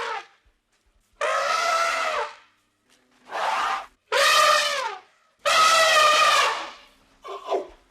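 Elephant trumpeting: about five loud calls of half a second to a second each, separated by short silences, several dropping in pitch at the end.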